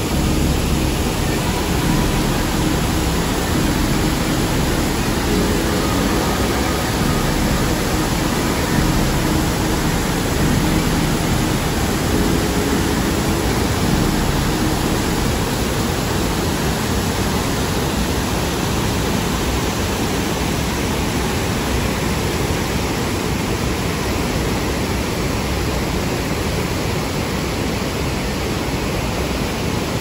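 Waterfall rushing: a loud, steady wash of falling water with no breaks.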